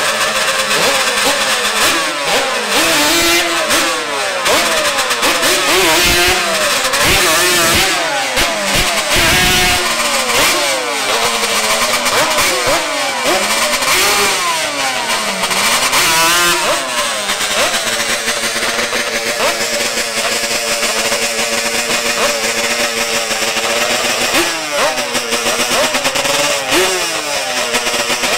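Sport ATV engine revved hard up and down again and again during a burnout, then held at a steadier speed while the quad creeps up to stage, with a quick rev near the end.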